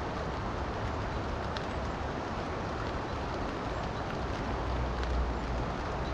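Steady rushing of a river mixed with rain, a constant noise with a deep rumble underneath and a few faint ticks of drops.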